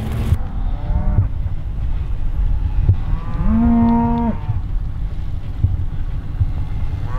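Beef cattle mooing behind a wire fence: a short, faint moo about half a second in, then a longer, steady moo lasting about a second, a little past three seconds in.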